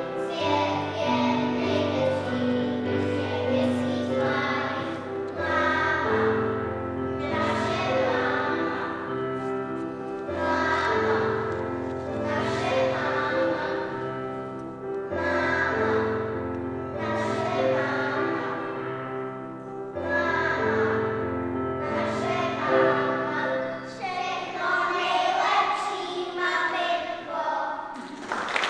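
A group of children singing a song together over an instrumental accompaniment with steady bass notes, in phrases that repeat every few seconds.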